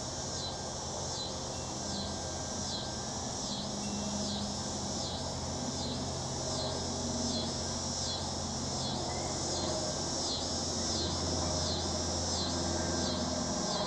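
Cessna 172 light propeller plane droning overhead, slowly growing louder as it approaches. Behind it, high-pitched insect calls pulse in a steady rhythm, a little more than once a second.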